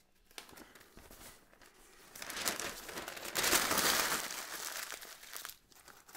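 Newspaper being rustled and crumpled by hand and stuffed into a wood cookstove's firebox as fire-starting paper. The crinkling builds, is loudest in the middle, and fades out near the end.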